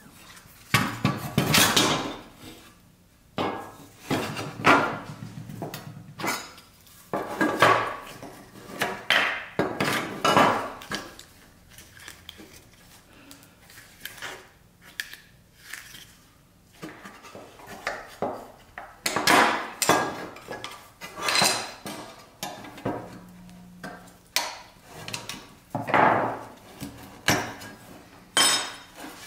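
Pressed-steel toy car body and its plastic seat and windshield pieces being handled, pulled apart and set down on a workbench. This gives an irregular run of clinks, clatters and knocks with short pauses between them.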